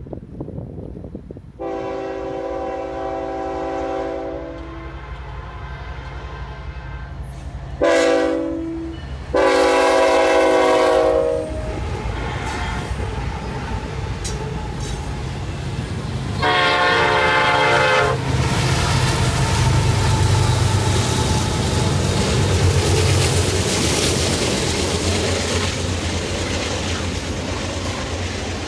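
CN freight train's diesel locomotive horn sounding four blasts, long, short, long, then one more, as the train approaches. The locomotives' engine rumble and the clatter of the passing container and hopper cars on the rails follow and carry on steadily.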